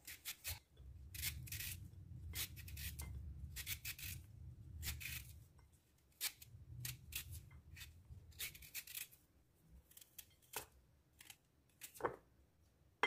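Vegetable peeler scraping strips of skin off a raw sweet potato: a faint, irregular series of short rasping strokes.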